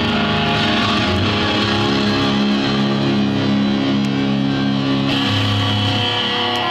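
Live rock band playing an electric-guitar intro through a large outdoor PA, recorded from the crowd: sustained, distorted-sounding chords that change every two to three seconds, with no vocals yet.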